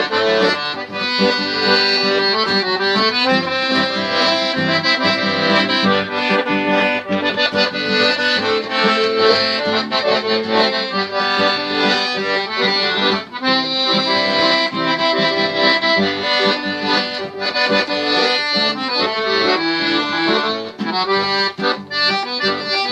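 Accordion (sanfona) playing an instrumental tune, with a busy melody over sustained reedy chords.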